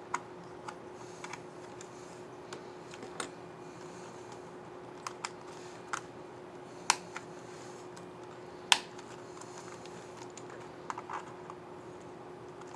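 Scattered plastic clicks from an HP Spectre 14 laptop keyboard's keycap and scissor mechanism being handled and pressed, with two sharper snaps about seven and nine seconds in. A faint steady hum runs underneath.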